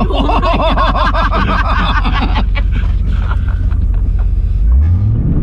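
Jeep Grand Cherokee engine running hard as the tires churn through mud, with a wavering high squeal over the first couple of seconds. The engine revs up near the end.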